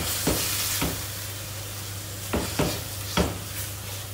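Keema (minced meat) sizzling in oil in a stainless steel pan while a spatula stirs it, scraping the pan in about seven uneven strokes. The hiss is loudest in the first second, just after garlic, cumin and spices go in, at the bhuna stage of frying the meat with its masala.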